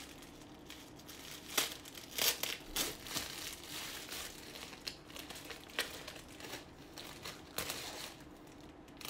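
Foil wrapper of a chocolate Easter egg crinkling and rustling as it is torn open and pulled apart by hand, in irregular crackles, the sharpest about two seconds in.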